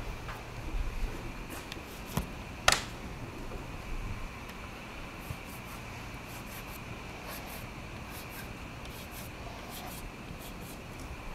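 Quiet classroom room tone with a steady hum. A sharp click comes about two and a half seconds in, and a run of faint scratchy ticks fills the second half.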